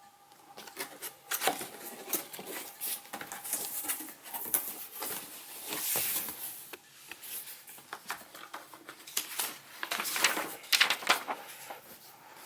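A cardboard box being opened and its packaging handled by hand: irregular rustling, scraping and sharp clicks of cardboard and packing material, busiest near the end.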